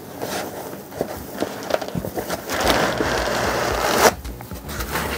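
A cardboard box being dragged out of a snug foam packing insert: a dry scraping rub lasting about a second and a half that ends in a sharp knock, after a few small taps and rustles of handling.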